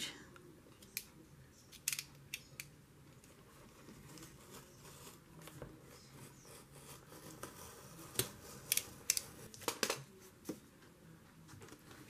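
Craft knife blade cutting paper along the spine of a hardcover book: faint scratchy slicing with scattered short, sharp clicks, several in quick succession about two-thirds of the way through.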